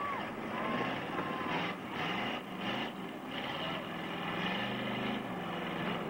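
Engines of four-cylinder demolition derby cars revving hard, several at once, the pitch surging up and falling back again and again.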